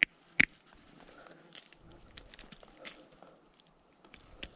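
Two sharp clicks near the start, then scattered faint ticks and small metallic rattles from handling a smallmouth bass and unhooking it with pliers over a rubber-mesh landing net.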